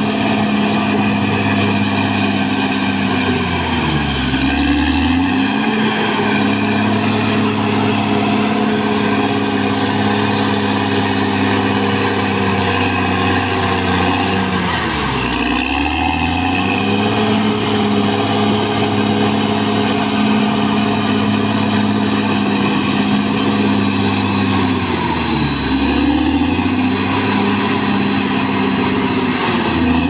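Caterpillar D6R XL bulldozer's diesel engine running steadily as the machine pushes earth. Its engine note sags in pitch and comes back up three times, about ten seconds apart.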